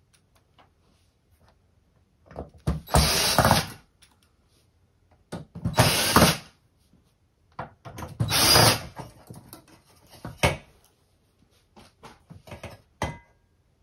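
Cordless screwdriver running in three short bursts of about a second each, backing out the screws that hold a metal cover on a flat-screen TV's back panel, followed by small clicks and knocks of screws and metal being handled.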